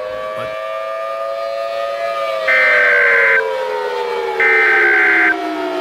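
Siren winding up to a peak about two seconds in, then slowly winding down. Over it come two loud, buzzy data bursts of about a second each: EAS SAME header tones.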